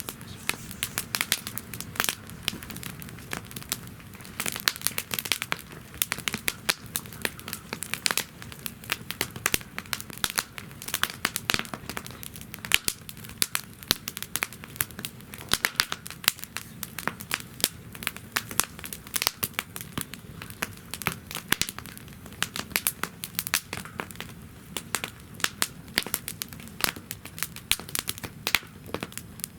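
Wood fire burning in a campfire stand, crackling and popping in dense, irregular snaps, over a low steady rumble of the flames.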